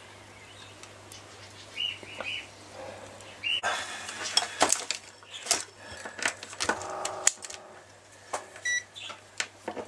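Handling noise from a digital multimeter and its test leads being picked up and set down on a cluttered workbench: plastic clicks, knocks and rustling that start about three and a half seconds in. A short high beep sounds near the end.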